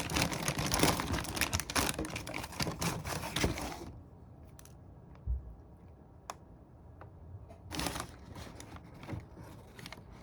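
Burger wrapper being unwrapped: dense crinkling and rustling for about four seconds, then quieter, with a few small ticks and a short rustle near the end.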